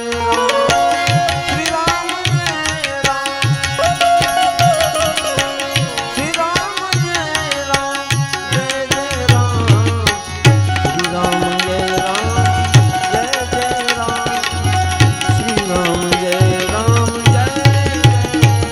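Live Gujarati devotional dhun music: a male voice singing over harmonium, a hand-drum beat and small hand cymbals, with a quickening pattern of drum strokes in the second half.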